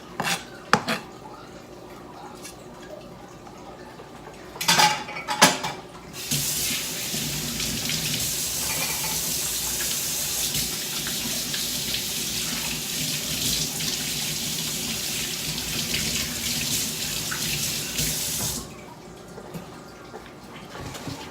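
A few sharp knocks, then a kitchen tap running water into the sink for about twelve seconds before it is shut off.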